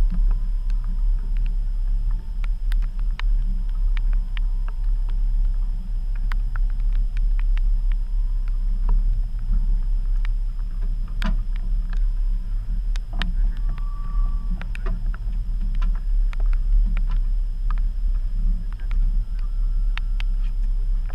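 Boat's outboard motor running steadily as a low drone, with scattered small clicks and knocks from gear being handled on deck.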